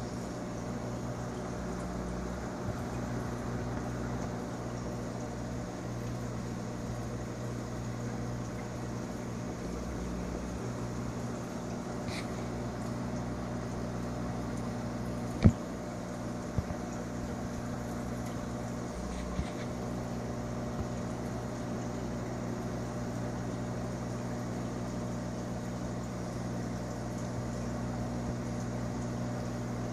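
Steady hum of an aquarium pump running, with a soft wash of water noise. A single sharp click comes about halfway through, followed by a few fainter ones.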